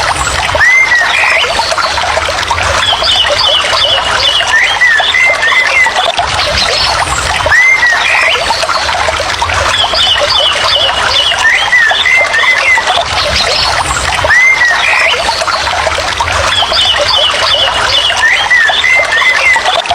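A steady rush of falling or running water, with short chirping calls and a quick trill over it. The whole pattern repeats about every seven seconds, a looped nature recording.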